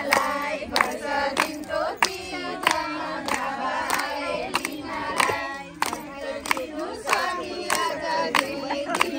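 A group of women singing a Nepali Teej folk song together, clapping in time with sharp, even claps a little under two a second.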